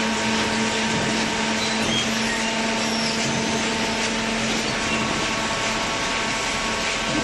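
Hydraulic cardboard baler running: a steady mechanical hum and hiss with a constant low tone, from its motor and hydraulic pump.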